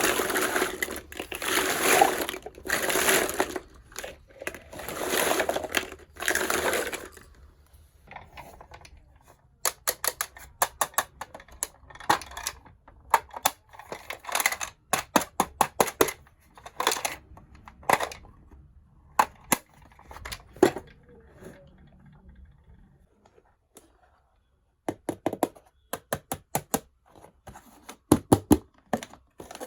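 Unboxing a miniature toy kitchen set: packaging rustles and crinkles for the first several seconds, then a run of sharp clicks and taps as the small toy pieces are handled and set down, with a brief pause near the end.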